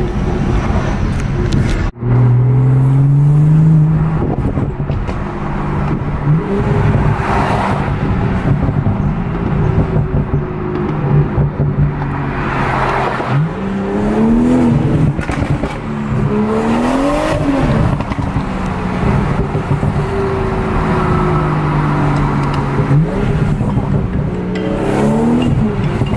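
BMW 340i's turbocharged B58 3.0-litre inline-six running on its stock intake, warming up after a cold start in Sport Plus mode. The engine note rises and falls in pitch several times as it is revved.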